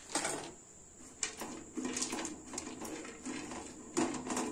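Silicone spatula stirring chopped cashews and almonds frying in ghee in a non-stick kadai, making a series of short scraping strokes. A faint steady high-pitched whine runs underneath.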